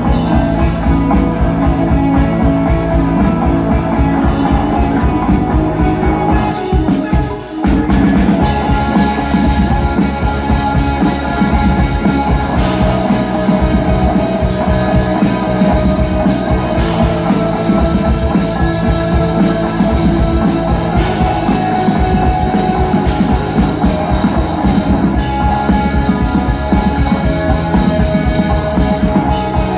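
Instrumental rock music with drum kit and guitar, a steady driving beat; the music briefly drops out about seven seconds in, then comes back in full.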